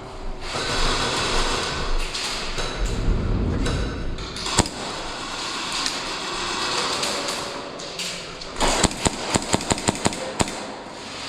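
Airsoft gun firing: a single sharp shot, then a quick run of about a dozen shots near the end, about six a second, over a background of noisy rustling.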